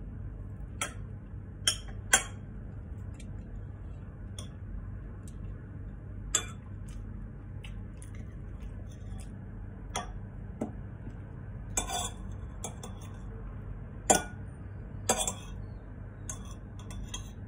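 Metal spoon clinking against a ceramic bowl while eating, in scattered sharp clinks every second or few with pauses between.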